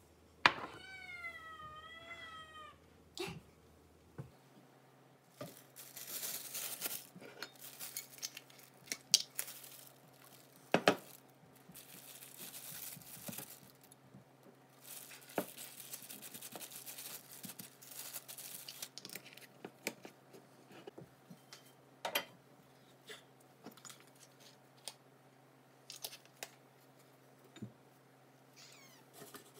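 A cat meows once near the start, a long wavering call. Then thin plastic (a food bag and a plastic glove) crinkles and rustles in repeated bursts as a raw steak is oiled and bagged, with a few sharp clicks. A faint low hum runs underneath from about four seconds in.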